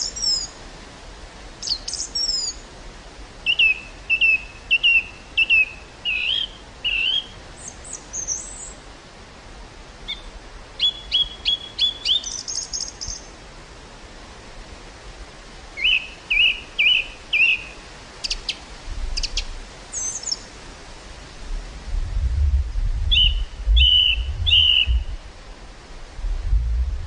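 Wild birds calling in runs of short, quick chirps with higher whistled notes between them. In the last third, wind gusts in a low rumble that grows and falls.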